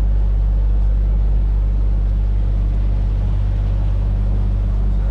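Tour boat's motor running with a steady low hum as it cruises along the canal.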